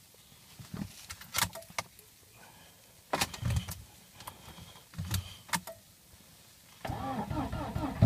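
A few clicks and short knocks, then about seven seconds in the Lada Priora's starter motor starts cranking the engine at −37 °C, turning it over with a wavering pitch in a hard cold start.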